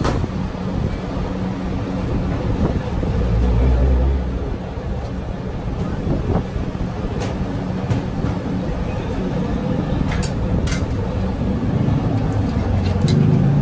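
Busy street food stall background: a steady low rumble with indistinct voices, and a few short sharp clicks about ten seconds in.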